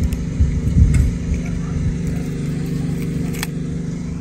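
Steady low mechanical hum, with a few light scrapes and clicks of a hand digging in dry sand. A brief louder low rumble comes in within the first second.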